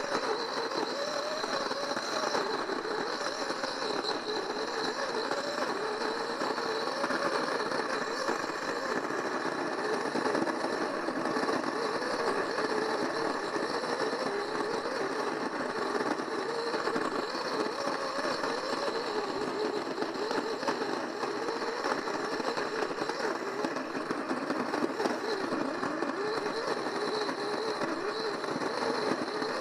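Old modified electric coffee grinder running continuously as it grinds dried natto beans to powder: a steady motor drone with a wavering hum.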